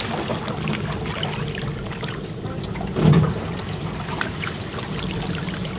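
Pond water sloshing and splashing around a person's legs as they wade, with a louder surge about three seconds in.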